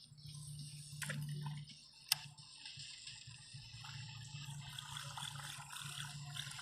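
Water lapping and dripping under a low steady hum, with a sharp click just after two seconds in.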